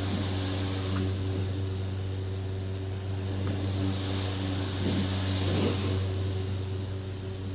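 Lawn mower engine running at a steady speed while mowing grass, with a rushing hiss that swells and eases midway.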